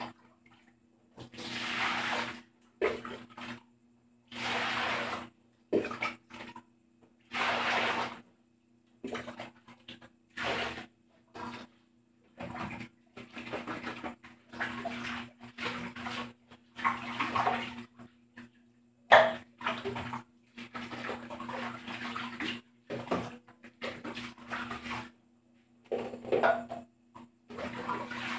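Dishes being hand-washed in a metal basin: water splashing and sloshing in repeated bursts of a second or two, with dishes knocking together and one sharp clatter a little past the middle. A faint steady low hum sits underneath.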